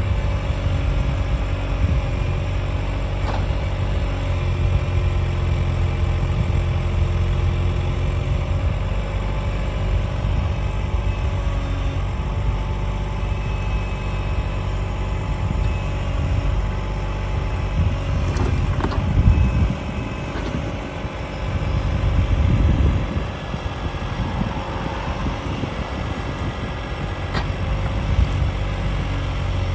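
Cat 303.5 mini excavator's engine running steadily, its note changing under load for a few seconds past the middle, with a few sharp metallic knocks.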